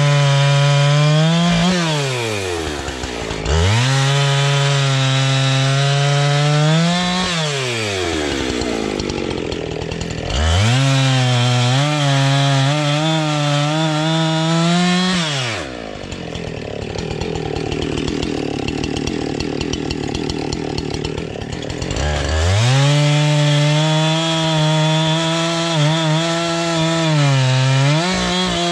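Husqvarna two-stroke chainsaw cutting logs into rounds. It is held at full throttle through several cuts, its pitch sagging and falling when the throttle is let off between cuts and climbing back as it is opened again. For several seconds past the middle it runs lower and quieter before revving up for the next cut.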